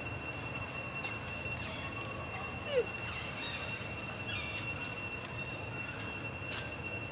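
Outdoor background noise with a steady high-pitched whine and low hum, and one short falling squeak about three seconds in.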